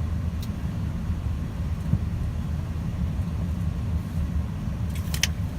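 Road noise inside a moving car: a steady low rumble of engine and tyres, with a short sharp click near the end.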